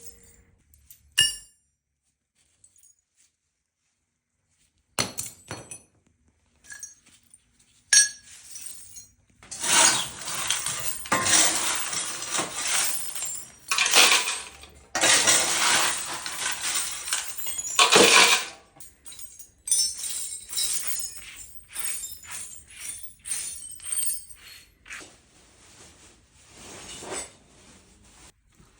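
Clattering and clinking of small hard objects being handled and dropped, in dense runs with sharp knocks, loudest in the middle stretch, after a few seconds of silence near the start.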